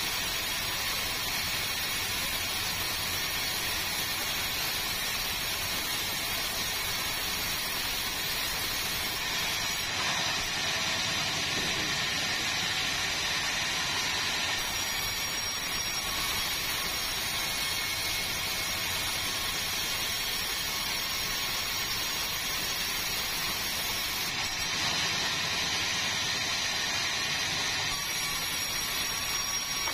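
Sawmill machinery running with a steady, hissing whir, its tone shifting abruptly a few times.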